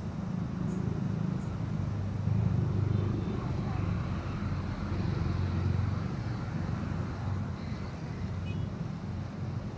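Busy city road traffic of cars, buses and motorcycles: a steady low rumble that swells a few seconds in, then eases back.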